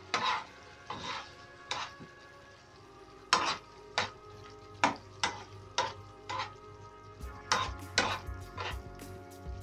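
A metal spoon scraping and knocking against a nonstick frying pan as it stirs chicken livers in a thick sauce that has just been thickened with cornstarch. The strokes are irregular, about one or two a second.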